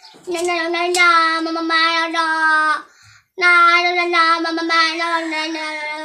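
A boy singing unaccompanied, holding long notes at a steady pitch, in two phrases with a short break about three seconds in.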